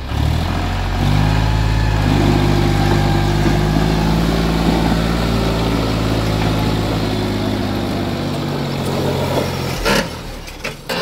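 John Deere 5104 tractor's three-cylinder diesel engine running steadily under heavy load while pulling an overloaded trailer, rising in pitch about a second in. Near the end the engine sound cuts off abruptly and a few sharp knocks follow.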